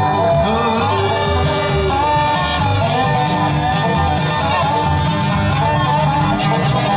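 Bluegrass band playing live, with banjo, fiddle, mandolin, flat-top guitar and resonator guitar (dobro) over a plucked upright bass keeping a steady beat.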